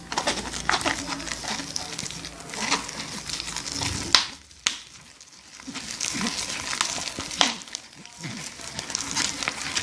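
Slime mixture being stirred in a bowl: wet, crackly squishing with many small clicks, and two sharp knocks about four seconds in.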